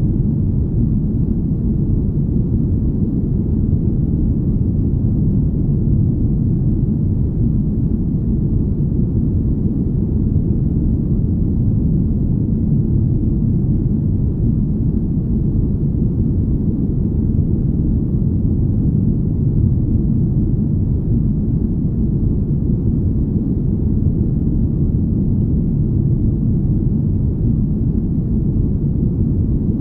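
Deep, smooth rumble: a steady low noise with no tones, all of it in the bass, unchanging throughout. It is a spaceship-hum ambience made for sleep.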